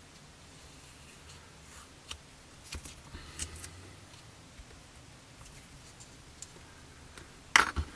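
Faint small clicks and crinkles of masking tape being peeled off a clear plastic model canopy with metal tweezers, with one sharper click near the end.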